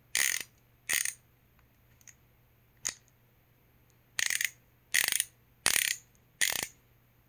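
Gearwrench 45-tooth ratcheting screwdriver's ratchet clicking as the shaft is swung back by hand, in short bursts of quick clicks. Two bursts come near the start, then a pause with a couple of single clicks, then four bursts in quick succession.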